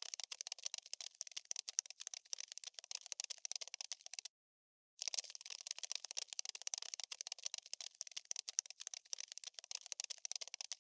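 Looped scuttling sound effect: rapid, dense dry clicking and scratching, all high-pitched, like insect legs skittering. It cuts out for under a second about four seconds in, then starts again unchanged.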